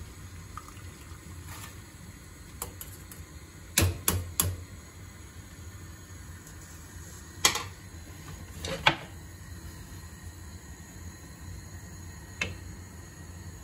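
Water bubbling steadily at a rolling boil in a stainless steel saucepan, broken by sharp knocks: three quick taps about four seconds in as the metal sieve is knocked on the pan to tip in the samphire, then a few single clacks of a wooden spoon against the pan as it is stirred.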